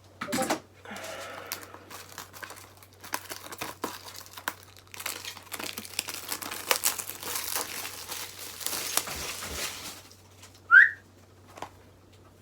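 Plastic wrapping crinkling and tearing as a DVD package is opened by hand, with a short rising squeak near the end.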